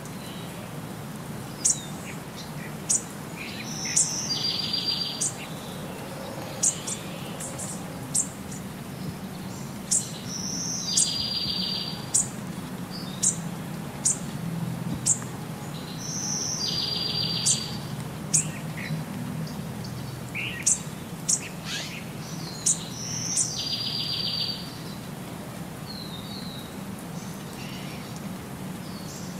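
Birds chirping in a looped recording: sharp high chirps and a short buzzy trill repeat about every six and a half seconds, over a low steady hum.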